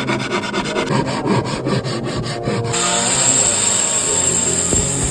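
Wood being rasped or rubbed in quick, even strokes, changing a little before halfway to a steadier scraping noise with a high hiss.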